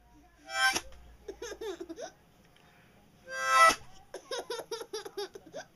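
A harmonica sounds two short, loud chords, about half a second in and again after about three seconds. After each chord a baby bursts into rapid laughter, the second run longer.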